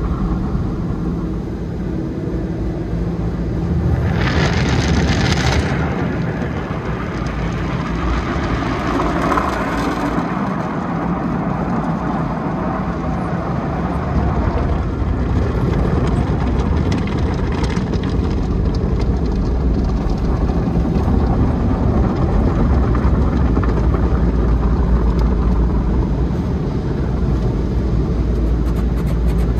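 Automatic car wash heard from inside the car: a steady low rumble of the wash machinery with water spray and brushes working over the windshield. A louder hiss of spray comes about four seconds in, and a quick run of knocks or slaps on the car near the end.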